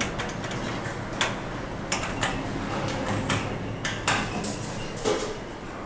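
Inside an Otis Gen2 ReGen lift car, a string of sharp clicks and knocks as the car's push buttons are pressed and the sliding doors work. A louder knock comes about five seconds in.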